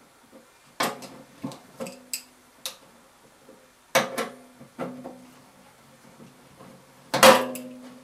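Metal clinks and knocks of a wrench on the blower motor's mounting bolts against the sheet-metal blower housing: a run of sharp clicks in the first three seconds, then heavier knocks about 4 s and 7 s in that ring briefly in the housing.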